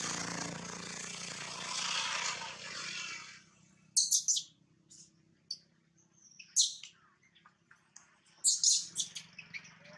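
Infant macaque giving short, high-pitched squeaks in quick clusters, the cries of a distressed newborn monkey at its mother's belly. For the first three seconds or so a steady rushing noise is heard instead; it stops before the squeaks begin.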